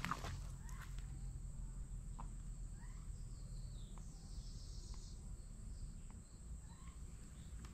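Insects calling with one steady, thin high tone, with a few short bird chirps and some faint clicks over a low, steady rumble.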